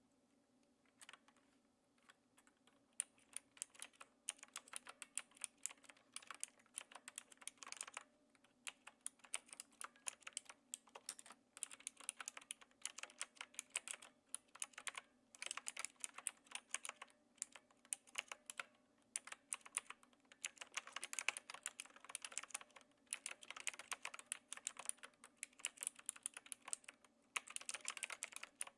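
Typing on a Knewkey Rymek typewriter-style mechanical keyboard with clicky blue switches, keys struck with a light touch. Keystrokes begin sparse about a second in, then run on as a quick, uneven stream of clicks with a couple of short pauses.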